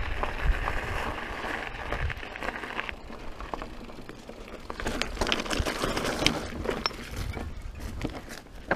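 Mountain bike riding over gravel and loose rock: tyres crunching on stones and the bike rattling, with sharp clicks and knocks that come thickest about five to seven seconds in.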